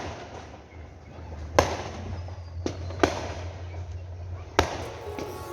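Fireworks going off: four sharp bangs at uneven gaps, the loudest about one and a half seconds in.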